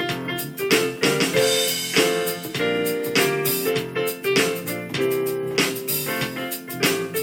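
Instrumental piano music: a melody of struck notes over chords, played on a piano or electric keyboard at a steady pace.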